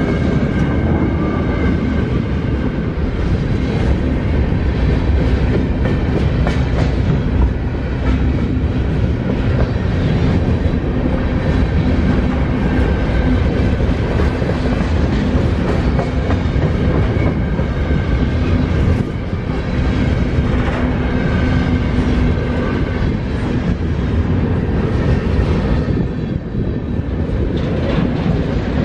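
Freight cars of a long mixed freight train rolling past close by: a steady rumble of steel wheels on rail, with wheels clacking over rail joints.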